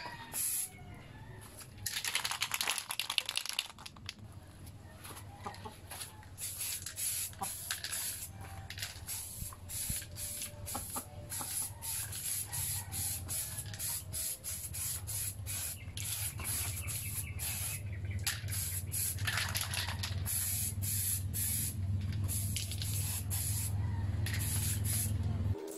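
Repeated short hissing bursts of spray paint over a steady low hum, with chickens clucking in the background.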